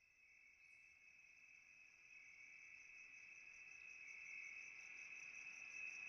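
Faint, steady high-pitched insect trill, like crickets, fading in and growing louder.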